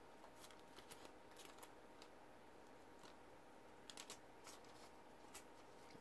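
Near silence with a few faint, scattered clicks and rustles of paper and card inserts being handled while a box set is unpacked, over a faint steady hum.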